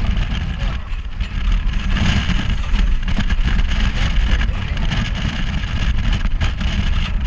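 Steady rumble of an open-backed off-road tour vehicle driving along a rough dirt track, engine and ride noise mixed into one loud, even din.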